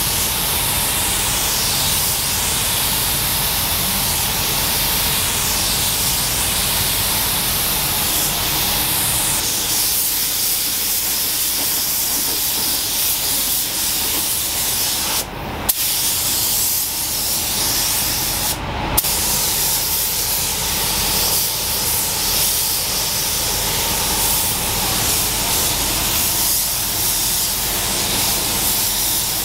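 Compressed-air paint spray gun hissing steadily as paint is sprayed onto the car body, with two brief breaks in the spray about halfway through.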